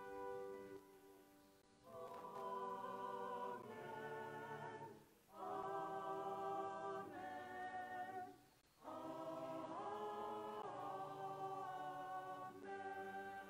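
Church choir singing slow, long-held chords in three phrases, with short breaks about five and nine seconds in.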